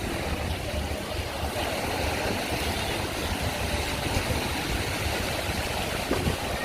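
Wind buffeting the microphone over the steady wash of sea waves on the beach.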